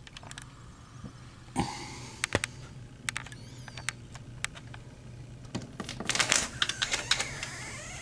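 Rustling and a run of sharp clicks as a curtain is pushed aside and a sliding glass door is opened, with the loudest burst of clicking and scraping a little past six seconds in.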